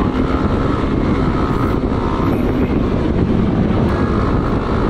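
Motorcycle riding through traffic, heard from a helmet-mounted camera: a steady rush of wind noise with the engine running underneath.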